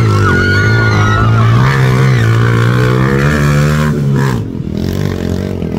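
Motorcycle engine of a racing tricycle revving hard, its pitch climbing, falling away about four seconds in, then picking up again.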